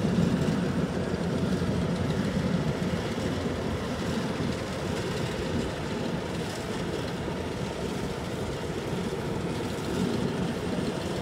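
Kubota rice combine harvester running steadily as it moves through the paddy, a continuous low engine and machinery drone.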